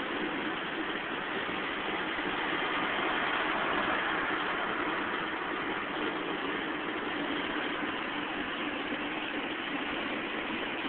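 Steady road noise inside a moving car's cabin at highway speed: a hiss of tyres and wind over the engine's drone, swelling slightly a few seconds in.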